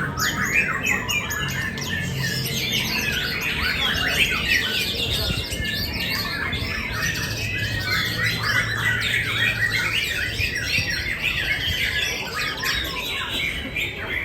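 Dense chorus of many caged songbirds singing at once: rapid overlapping chirps, trills and whistles that go on without a break.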